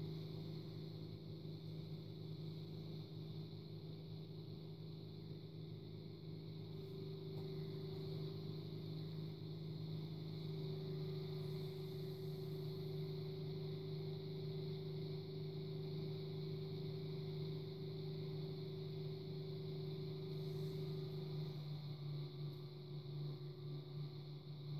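Electric potter's wheel motor running with a steady low hum while clay is thrown on it, with a fainter higher whine that shifts slightly in pitch now and then.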